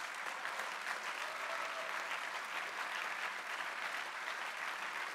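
Large seated audience applauding, a steady clapping.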